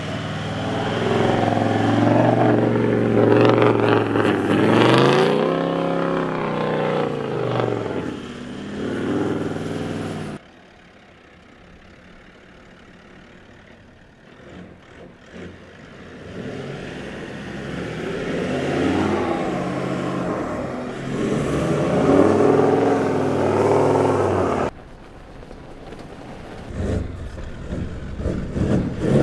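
Four-wheel-drive engine revving up and down as it is driven over soft sand dunes, the pitch climbing and falling with the throttle. The sound drops away suddenly about ten seconds in and again near the end, then builds back up each time.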